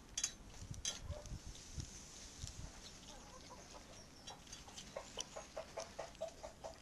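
A kitten eating from a metal pan, with a few sharp crunching clicks near the start. From about halfway on there is a steady run of short pitched sounds, about four a second.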